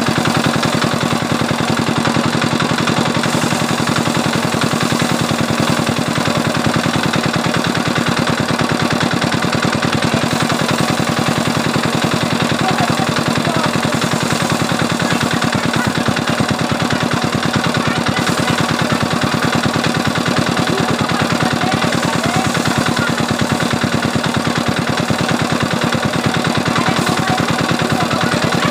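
Small single-cylinder diesel engine running steadily with a fast, even beat, belt-driving a rice drum thresher.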